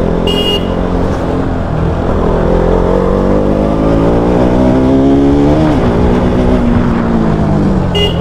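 Motorcycle engine running in city traffic. It rises steadily in pitch for about three seconds as it accelerates, then drops off and slowly winds down. A short high beep sounds about half a second in and again near the end.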